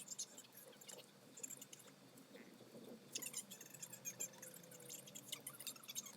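Faint, scattered small clicks and taps, as of small objects being handled.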